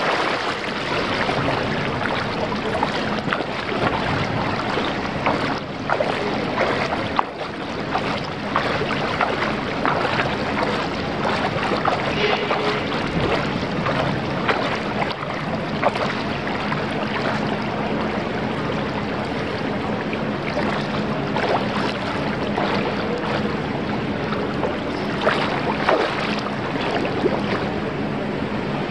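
Water splashing and churning right at the microphone as a swimmer strokes through a pool: a steady rushing with frequent sharp splashes.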